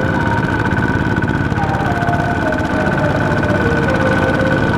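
Several Kubota ZT walking tractors' single-cylinder diesel engines running together with a steady rapid chugging as the cage-wheeled machines work a flooded rice paddy.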